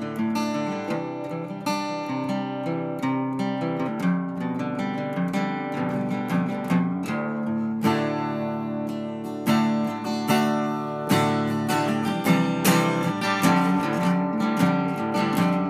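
Acoustic guitar music, plucked and strummed, with notes starting several times a second.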